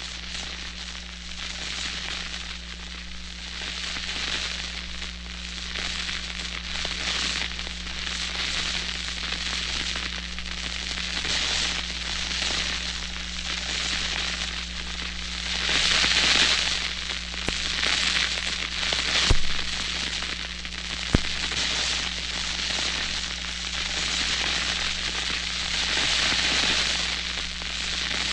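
Burning fuse sizzling and sputtering with a continuous crackling hiss that swells and eases. Two sharp pops come about two-thirds of the way through, over a steady low hum.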